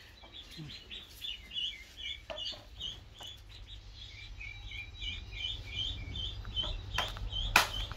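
Baby poultry peeping: a steady run of short, high peeps, about two or three a second. A sharp knock sounds near the end.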